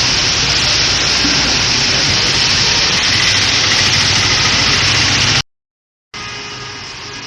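Heavy rain falling, a loud steady hiss. It cuts off abruptly about five and a half seconds in, and after a moment of silence a quieter hum with steady engine tones follows.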